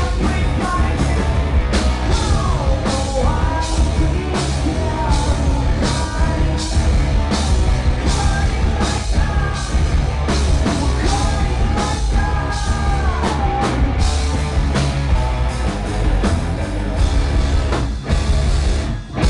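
Live rock band performing: a male lead singer sings over electric guitars, bass and a drum kit hit in steady regular strokes. The music stops just before the end.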